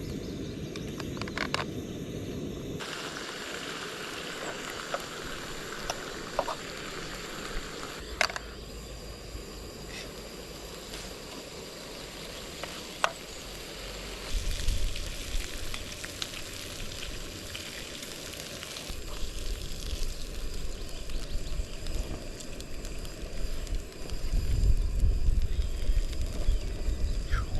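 Dry-cured streaky bacon sizzling in a pan, with a few sharp pops. A low rumble comes in about halfway and grows louder near the end.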